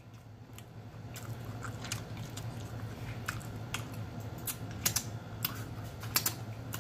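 Close-miked chewing of a bite of deviled egg: irregular mouth clicks and smacks over a steady low hum.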